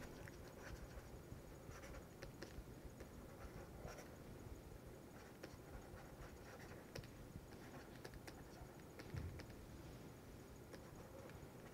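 Faint, scattered light clicks and taps of a stylus writing on a pen tablet, over low room noise.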